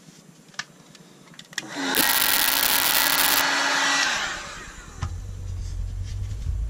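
Handheld electric heat gun switched on about two seconds in, blowing with a steady motor hum and whine over a loud rush of air, then switched off and winding down about four seconds in. A lower steady rumble follows near the end.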